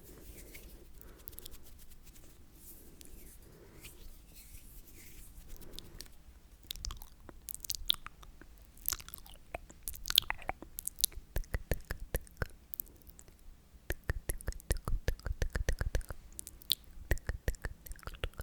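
Close-miked sticky mouth sounds: wet clicks and smacks of tongue and lips, sparse and soft at first, then about halfway through growing into fast runs of clicks.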